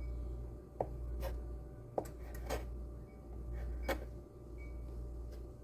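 Light kitchen handling noises as dumpling dough is worked at the counter: about five short taps and knocks, over a steady low hum.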